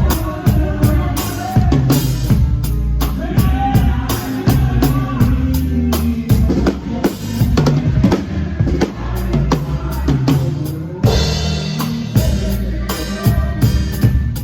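Live band music driven by a drum kit: steady bass drum, snare and rimshot hits over sustained bass notes.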